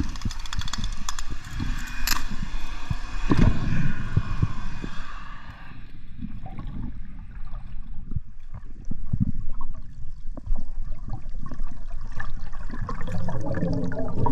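Underwater audio of a speargun shot, heard through an underwater camera housing: a sharp snap about two seconds in and a heavy thump just after. This is followed by bubbling, gurgling and scattered muffled knocks as the speared fish is brought in on the shaft.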